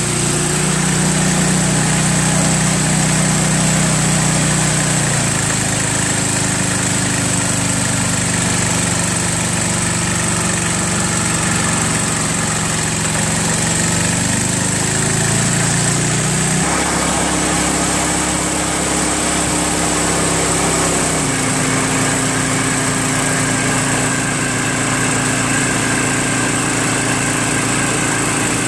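Craftsman 524 two-stage snowblower's 5 hp Tecumseh engine running, an engine the owner takes for low on compression and pretty much blown. Its speed shifts several times: a step about five seconds in, a wavering glide around the middle, and further steps a little later.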